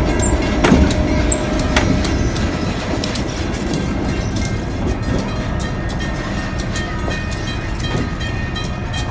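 Diesel-hauled excursion train rolling slowly along the track, its low rumble broken by wheel clicks and knocks over the rail joints, gradually fading as it moves off.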